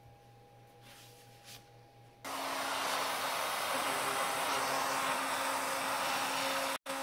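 CNC router spindle running at speed, its cutter boring into the end grain of a yew log: a steady loud whirring noise with a constant low hum, starting abruptly about two seconds in after a faint hum. It drops out for an instant near the end.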